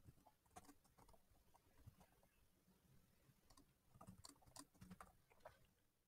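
Faint typing on a computer keyboard: scattered single keystrokes, then a quicker run of clicks in the last couple of seconds.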